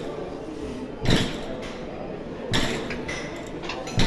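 Plate-loaded leg press clanking in rhythm with the reps: three sharp metal knocks about a second and a half apart, each dying away quickly.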